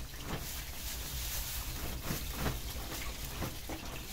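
Clear plastic bag being handled, crinkling in scattered short rustles, over a steady low rumble.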